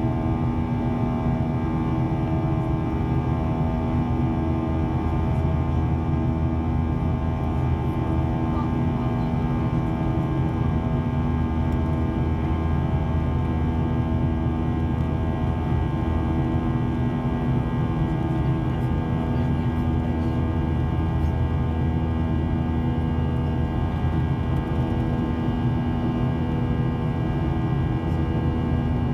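Boeing 737-800's CFM56-7B turbofan engines heard from inside the passenger cabin in the climb after takeoff: a steady drone with a low rumble and several held tones that pulse slowly and regularly as the two engines beat against each other.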